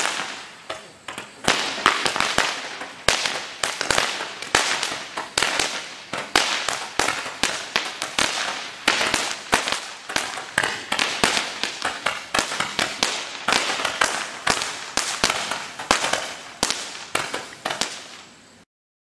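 Brothers Pyrotechnics '100 Snappy Days' 100-shot F2 firework fountain going off: a rapid, irregular string of sharp snaps and pops from its small whizzing bursts, over a continuous hiss. The firing stops abruptly near the end.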